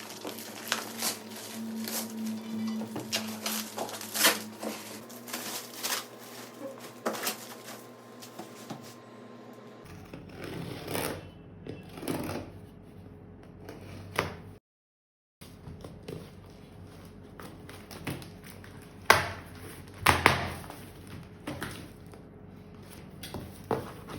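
Unboxing handling sounds: scattered taps, clicks and rustles of packaging being opened and handled, with a dead silence of under a second about two-thirds of the way through.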